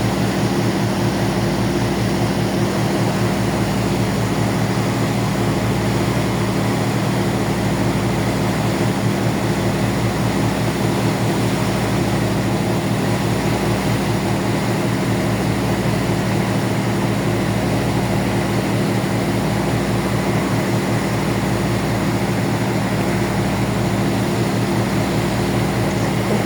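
A ferry's engines running with a steady low drone, and a slow throb in the deepest tones.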